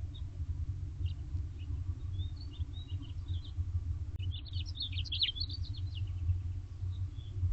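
Small birds chirping in quick, high twittering notes, busiest about halfway through, over a steady low rumble.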